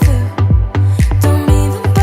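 Background pop music with a steady beat of about two drum hits a second, a sustained bass and a melody on top.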